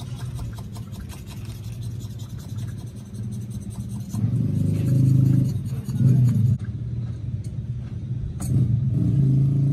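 Low engine rumble, a steady hum that swells louder about four seconds in and again near the end, with a few faint light clicks in the first half.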